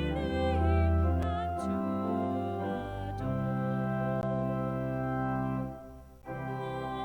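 Organ playing slow, sustained chords, with a brief break between phrases about six seconds in.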